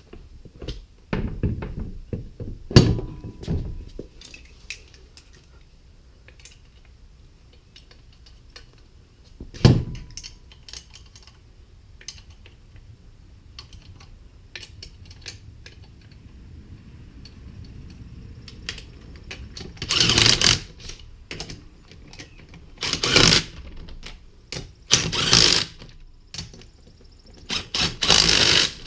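Clanks and knocks of a wheel being fitted onto the hub, then four short bursts of rapid ratchet-wrench clicking near the end as the lug nuts are run down.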